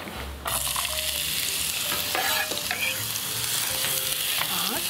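Chopped onion sizzling in hot oil in a frying pan, the sizzle starting suddenly about half a second in as the onion goes in, then holding steady while it is stirred with a wooden spatula.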